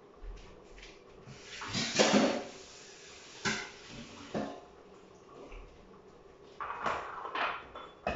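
Kitchen work sounds: a short rush of water at the sink about two seconds in, the loudest thing heard, then scattered clinks and knocks of dishes, bowls and utensils being handled and set down on the counter.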